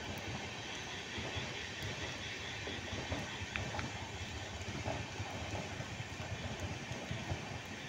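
Express train's passenger coaches rolling past at slowing speed, a steady rumble and hiss of wheels on rail.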